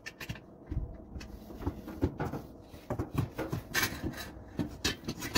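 Irregular knocks and clatter of grill parts being handled and fitted during assembly, getting busier and louder from about two seconds in.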